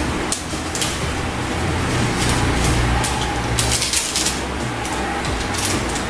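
Soft crackles and rustles of a seasoning sachet being shaken out over a pan, over a steady low background hum.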